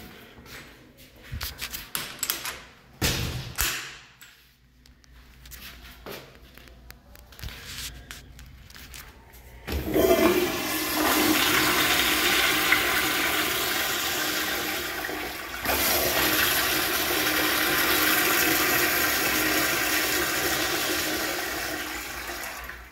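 Commercial flushometer toilet with a Toto CT705ELN bowl flushing. After about ten seconds of scattered clicks and knocks, a sudden loud rush of water starts, surges again partway through, and fades near the end.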